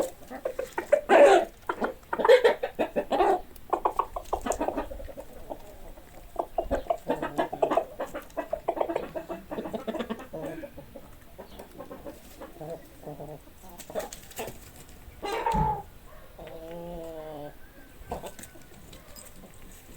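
A flock of domestic hens clucking, with several loud squawking calls in the first few seconds and another loud call about fifteen seconds in.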